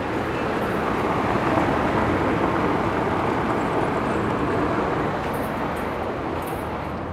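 A passing vehicle: a steady rushing noise that swells over the first couple of seconds and then slowly fades.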